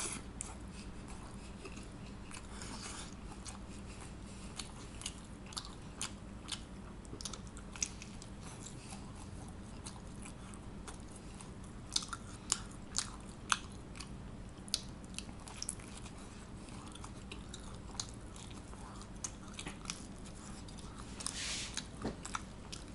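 A person biting and chewing pizza close to the microphone, with scattered small crunches and mouth clicks throughout.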